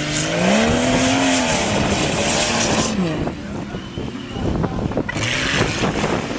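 Off-road racing 4x4's engine revving hard. Its pitch climbs about half a second in, holds, then drops away about three seconds in, over a loud hiss that stops at the same moment. Another burst of hiss comes near the end.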